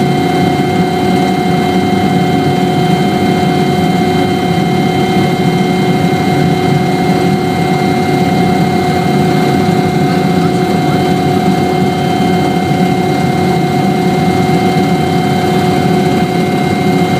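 Helicopter running steadily: a constant low drone from the rotor and engine with a steady whine on top, holding the same pitch throughout.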